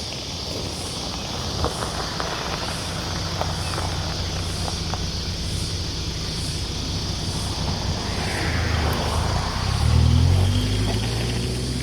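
Road vehicle passing on a country road: a steady low rumble swells to its loudest about ten seconds in, then an engine note climbs in pitch near the end. A faint high pulse repeats about every half second throughout, with a few sharp clicks in the first seconds.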